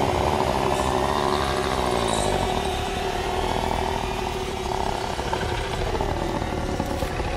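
Thriller sound design: a loud, rasping, buzzing drone over a steady low hum, easing slightly toward the end.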